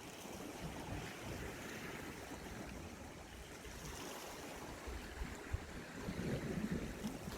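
Sea waves washing against the shore, with wind buffeting the microphone: a steady hiss over a low rumble. There is a single sharp click about five and a half seconds in.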